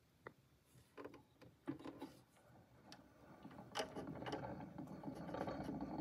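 Clicks and knocks of a Victrola IX tonearm with a Pathé adaptor being handled and lowered onto a spinning Pathé disc, then steady surface noise from the stylus in the lead-in groove, growing from about four seconds in.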